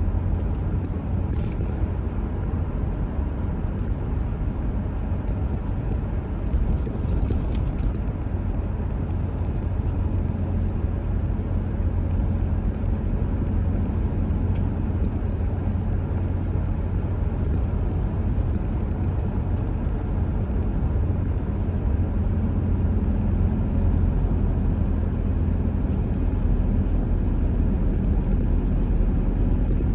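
Car driving along a road: a steady, low rumble of engine and tyre noise.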